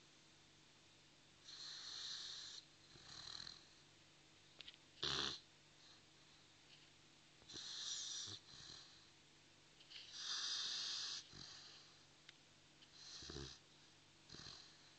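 A Dogue de Bordeaux (French mastiff) snoring in its sleep, with slow, raspy breaths every few seconds, each a longer breath followed by a shorter one. One short, louder snort comes about five seconds in.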